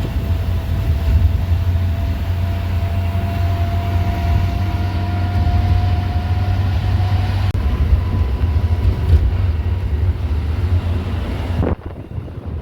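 Engine of a piece of farm machinery running steadily with a heavy low rumble and a faint whine that slowly rises in pitch, cut off abruptly near the end.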